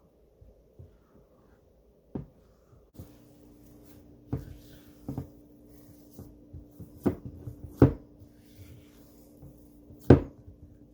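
Kitchen utensils and dishes knocking and clinking, about six separate knocks with the loudest near the end, over a faint steady hum that starts about three seconds in.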